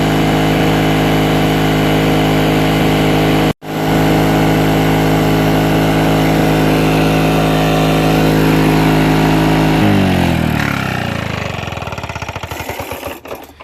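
Lawn-Boy mower's regular C-series two-stroke engine running steadily at speed, with a split-second dropout in the sound about three and a half seconds in. About ten seconds in it is shut off, and its pitch falls as it winds down to a stop.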